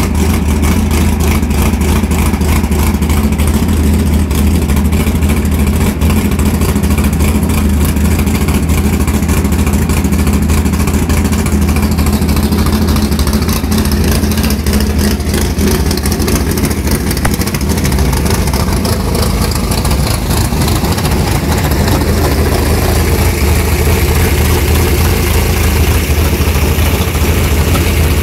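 V8 engine with a four-barrel carburettor, fitted in a Datsun Z-car drag car, idling loudly and steadily with a deep, even rumble.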